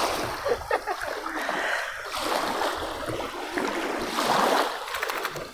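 River water splashing and lapping at the water's edge, a rushing noise that swells and fades.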